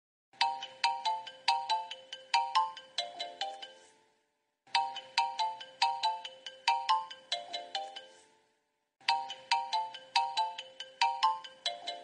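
Phone ringtone: a short melody of quick, sharply struck notes that fade fast, ending on a few lower notes. The phrase repeats about every four seconds, starting three times with a brief gap between repeats.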